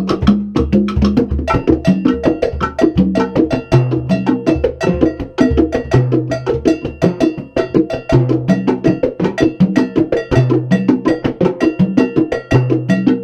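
Live Latin percussion playing a steady salsa-style groove: a cowbell struck with a stick in a repeating pattern, with drum hits throughout, over a repeating low bass line.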